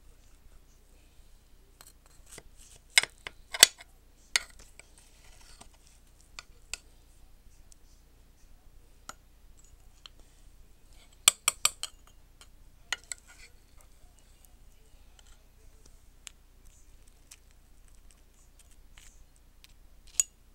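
A serving spoon clinking and scraping against a glass baking dish and a ceramic bowl as cobbler is dished up: scattered sharp clinks, the loudest coming in a few quick runs about three seconds in and about eleven seconds in, with a last clink near the end.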